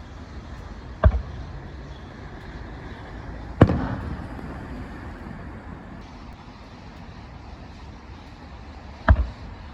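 Fireworks shells bursting: three loud booms, about a second in, near four seconds and again near the end. The second boom trails off in a rumbling echo.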